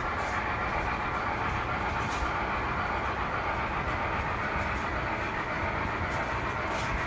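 Model train running around the layout track, a model steam locomotive pulling freight cars: a steady whirring of motor and wheels on the rails, with a few faint clicks.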